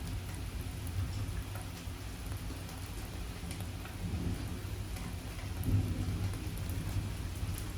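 Steady heavy rain hissing, with scattered drop ticks, over a continuous low rumble of thunder that swells briefly about six seconds in.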